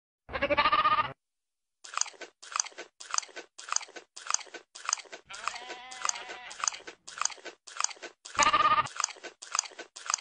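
A goat bleats twice, near the start and again about eight seconds in. Between and after the bleats it chews something crunchy in a steady rhythm of about two bites a second.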